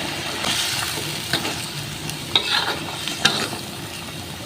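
Spatula stirring chilli balado sauce in a sizzling frying pan, working in the sugar, salt and flavour enhancer just added. There is a steady hiss of frying and a few short scrapes of the spatula against the pan.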